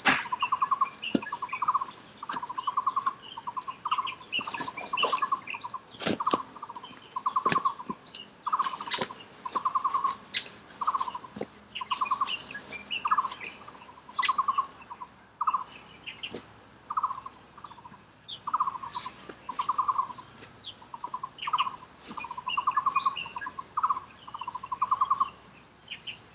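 An animal calling over and over: short, rapidly pulsed trills at one pitch, about one a second. Scattered sharp clicks and knocks sound among the calls, over a faint steady high whine.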